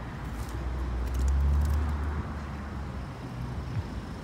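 Chevrolet Camaro's 3.6-litre V6 idling, a steady low exhaust hum that grows louder for about a second and then settles back.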